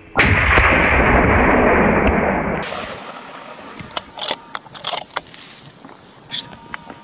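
A gunshot that starts suddenly, loud, and rolls on for about two seconds before dying away. It is followed by a few faint short clicks.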